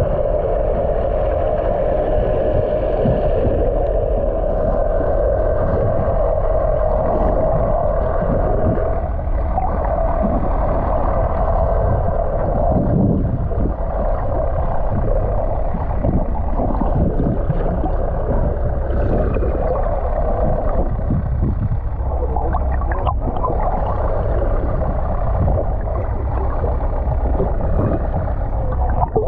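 Muffled underwater sound picked up through a camera's waterproof housing: a steady low rumble and hum with water gurgling around it.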